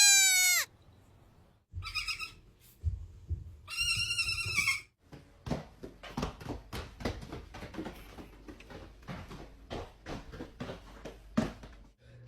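Baby goats bleating: a falling bleat right at the start, a short one about two seconds in and a longer one around four seconds in, followed by a long run of quick light taps and knocks.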